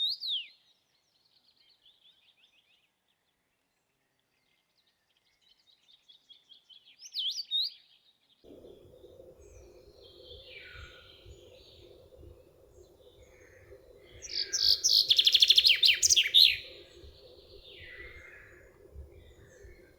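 Songbirds singing: short whistled, sliding phrases at the start and again about seven seconds in. From about eight seconds a steady low hum runs underneath, and a loud, rapid trill about three-quarters of the way through is the loudest sound.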